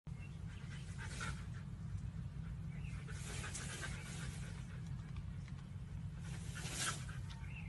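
A dog panting in about three short breathy bursts over a steady low rumble.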